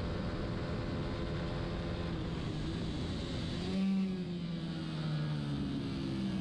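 Racing motorcycle engine running hard on track over steady rushing noise. About four seconds in the revs drop as the bike slows for a corner, then climb again as it accelerates out.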